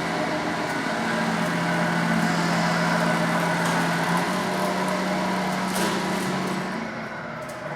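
Electric whine of a Tamiya Knight Hauler RC truck's 60-turn brushed crawler motor and gearbox as the truck drives at low speed. The steady whine steps up slightly in pitch about four seconds in and fades near the end.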